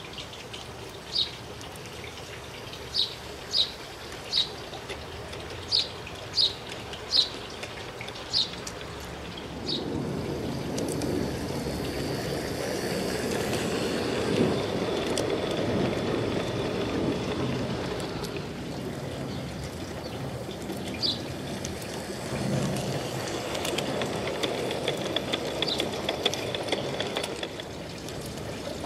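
G-scale model train, a 20-ton diesel locomotive pulling ore hopper cars, rolling along garden railway track: the rumble of wheels on rails swells from about ten seconds in as the cars pass close, eases, then builds again near the end with light clicks. Short high chirps sound several times in the first ten seconds.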